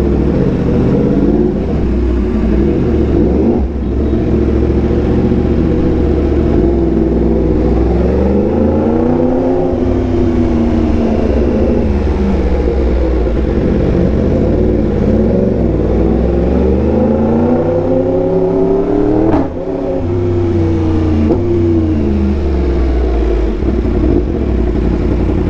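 Yamaha R1M's crossplane inline-four, through an SC Project exhaust, running under way. Its note rises and falls repeatedly as the throttle is rolled on and off, with a sudden break about nineteen seconds in.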